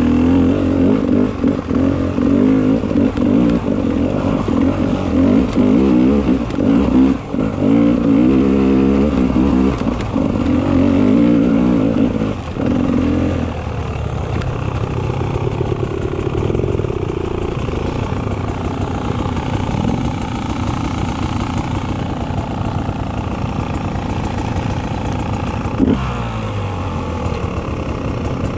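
Beta 300 RR two-stroke dirt bike engine revving hard and rising and falling in pitch for about the first half, then easing off to a quieter, lower, steadier run. There is a sharp knock near the end.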